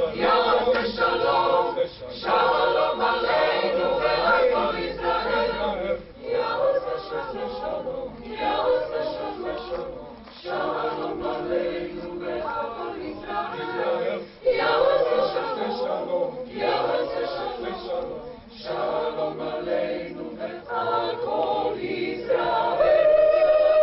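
Mixed choir of women and men singing unaccompanied, in phrases broken by short pauses. Near the end the sound changes to a single steady held tone.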